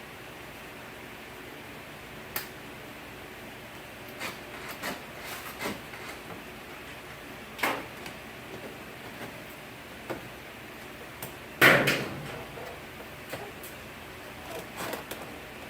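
Scattered clicks and knocks of parts being handled during reassembly, with one louder knock about three-quarters of the way through.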